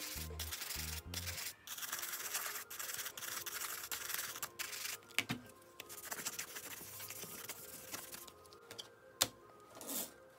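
Toothbrush bristles scrubbing the lathered front cover of a Sony WM-190 Walkman, a fast scratchy rubbing, giving way after about five seconds to softer wiping with a cloth. A sharp click comes near the end.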